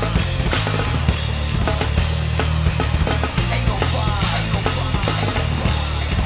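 Loud live rock band playing: pounding drum kit, guitar and bass, with a singer shouting into a hand-held microphone.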